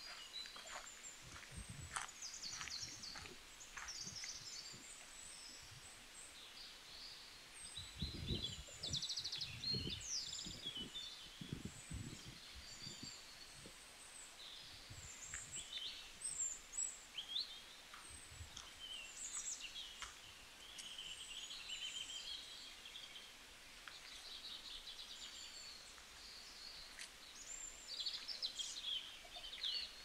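Several songbirds chirping and singing, short high-pitched calls and trills overlapping throughout, with a few low thumps about eight to twelve seconds in.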